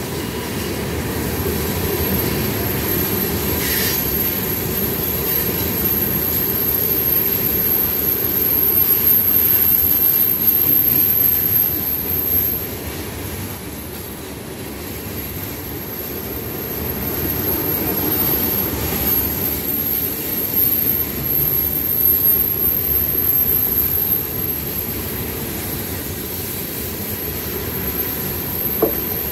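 Freight train cars, tank cars and then covered hoppers, rolling past on steel rails: a steady low rumble of wheels and trucks that swells and eases as the cars go by. A thin, steady high squeal runs above the rumble.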